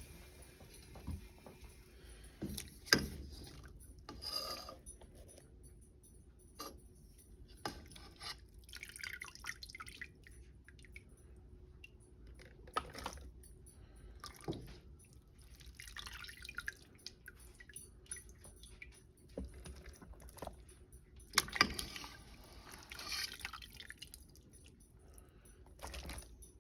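Intermittent kitchen handling noises: scattered light knocks and clinks, with short stretches of wet, liquid-like rustling in between.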